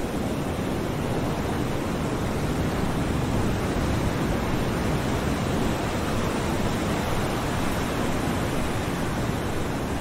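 Ocean waves washing against a shore: a steady rushing surf that swells a little about four seconds in.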